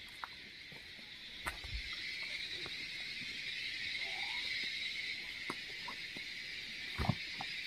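Steady, high-pitched chorus of insects in the forest at dusk. Over it are a few soft footsteps and knocks on the forest floor, the loudest just before the end.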